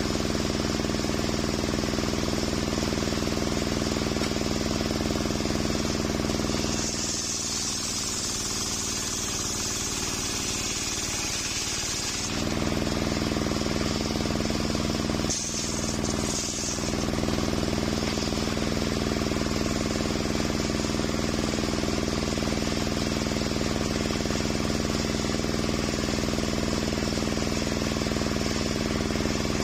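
Engine-driven circular saw table running steadily with a constant pitched drone. About seven seconds in, the blade cuts through coconut wood for some five seconds: the engine note sags under load and a high hiss of blade in wood comes in. A shorter cut follows around sixteen seconds.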